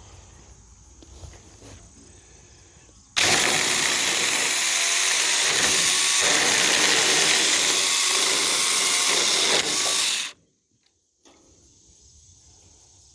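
4-inch cordless electric mini chainsaw running under load, its chain cutting through willow wood. The saw starts about three seconds in, runs steadily for about seven seconds, then stops abruptly.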